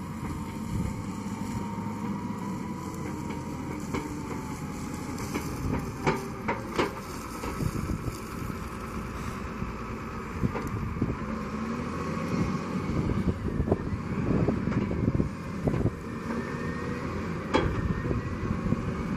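Volvo L70C wheel loader's diesel engine running steadily as the loader drives carrying straw bales in its clamp, with a few sharp knocks, two close together near the middle and one near the end.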